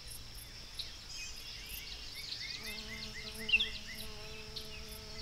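Ambient nature sound: many short bird chirps over a steady insect drone, with a soft sustained tone coming in about halfway.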